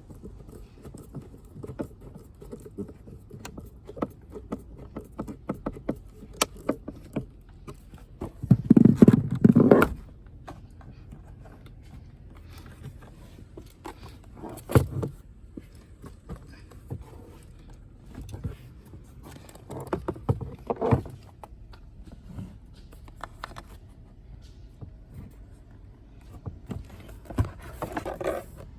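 Irregular clicks, taps and knocks of parts and tools being handled while working on a car's blower motor under the dashboard, with a louder rattling clatter about nine seconds in and shorter clunks later.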